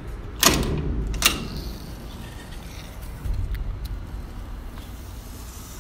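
A door being handled: a solid knock as it swings shut, then a sharp click of its latch a moment later. A low rumble follows about three seconds in.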